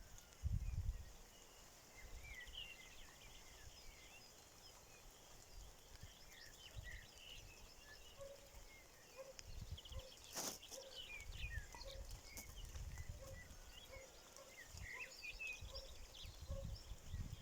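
Small birds chirping in short high notes, over intermittent low rumbling, with a sharp click about ten seconds in.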